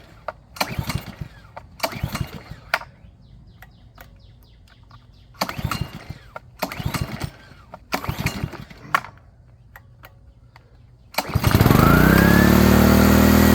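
Small Honda four-stroke engine on a pressure washer being pull-started on choke: several recoil-cord pulls with pauses between them. It catches on the last pull about eleven seconds in, revs up and settles into a steady run, starting again now that the clogged carburetor jet has been cleared with a wire.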